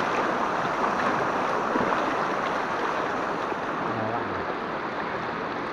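Steady rushing of floodwater flowing across a submerged path and spilling off its edge into a flooded field.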